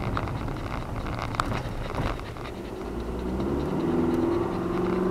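Car engine and road noise from inside the cabin while driving, a steady low rumble with a few light ticks; about halfway in an engine drone with steady tones comes up and gets a little louder.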